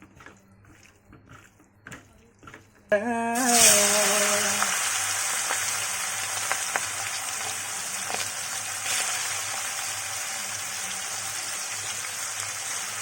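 Chicken pieces going into hot oil in a pan about three seconds in, setting off a sudden loud sizzle that settles into a steady frying hiss. Before that, only a few faint clicks.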